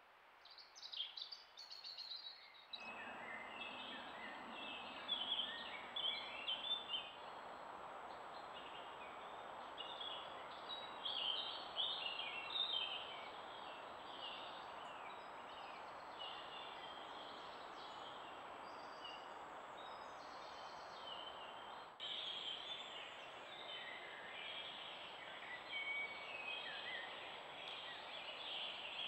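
Woodland birds singing, many short chirps and song phrases from several birds, over a steady background hiss with a thin, steady high whine.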